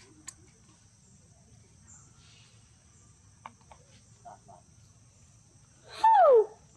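Steady high trilling of insects, then about six seconds in a baby macaque gives one short, loud squeal that falls in pitch.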